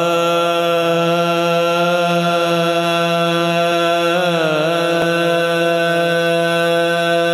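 A man's voice chanting one long held note at the opening of a naat recitation, with a brief dip and waver in pitch about four seconds in.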